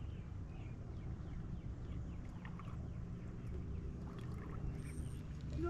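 Steady low rumble of open water and wind around a small fishing boat, with faint high chirps scattered through.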